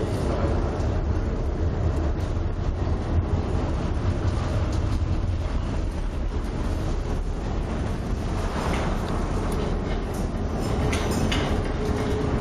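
Steady low rumble heard from inside a tanker's wheelhouse in a storm: the ship's engine and hull noise mixed with wind and heavy seas. Louder hissing swells rise about two-thirds of the way in and again near the end.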